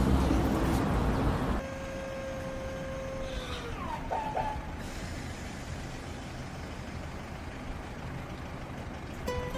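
Car engine running with a heavy low rumble that cuts out abruptly about a second and a half in, the car dying. A much fainter steady background with a held tone follows, and the tone slides downward about four seconds in.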